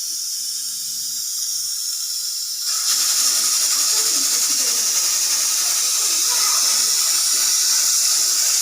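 Pressure cooker hissing steadily as steam escapes, with no whistle. The hiss jumps louder a little under three seconds in and stays there. The cooker is not working up to its whistle.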